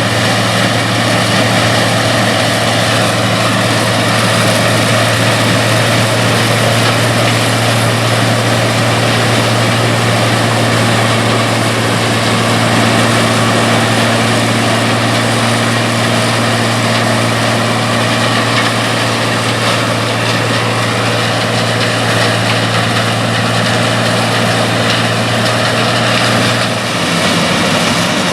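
Combine harvester running steadily in the field: a constant low engine hum under a broad mechanical rush from the harvesting machinery. The hum shifts to a different pitch near the end.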